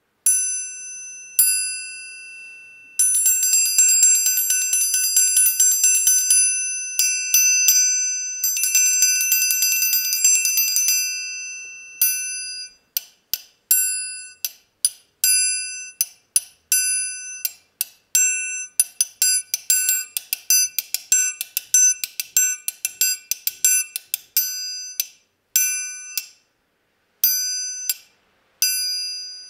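Metal triangle struck with a metal beater: ringing single strikes, two fast rolls of a few seconds each in the first half, then rhythmic patterns of quick strikes, many cut short as the holding hand grips the triangle to damp it.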